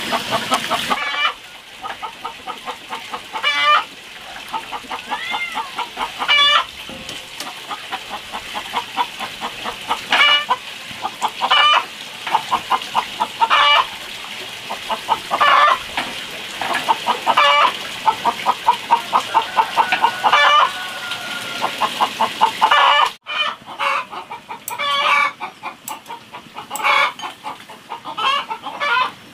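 Chickens clucking: a string of short, rapidly pulsed calls repeating every second or two. The sound drops out abruptly once near the end.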